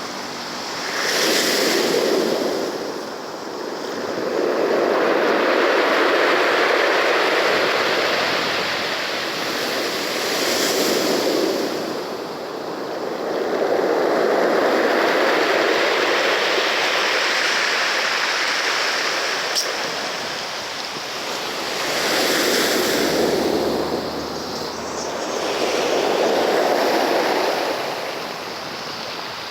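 Sea waves breaking and washing ashore, the surf swelling and easing again every few seconds.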